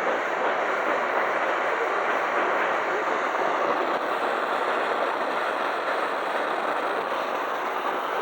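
Oxy-acetylene cutting torch cutting through steel plate: a steady, rough hissing rush that holds an even level throughout.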